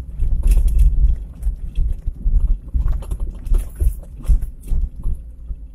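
Cabin sound of a Perodua Kembara four-wheel drive on a rough dirt track: a steady low rumble of engine and tyres, broken by frequent irregular knocks and rattles from the body and suspension over bumps.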